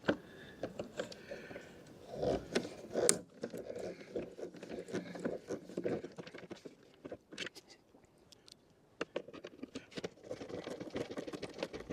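Plastic van mirror-shell parts being handled and fitted by hand: irregular small clicks, knocks and short scrapes of hard plastic. Denser bursts of scraping come about two seconds in and again near the end.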